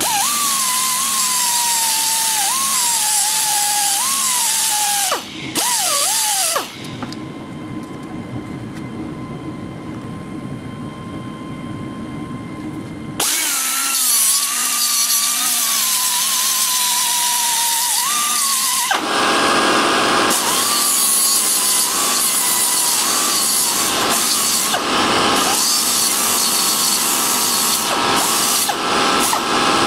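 Rotary power tool spinning a foam-backed sanding disc against the finned cast-aluminium cylinder of an air compressor. Its motor whine sags in pitch and recovers as the part is pressed on and eased off. The tool goes quieter for several seconds in the first half, then comes back. For the last third, a louder, rougher sanding rasp covers the whine.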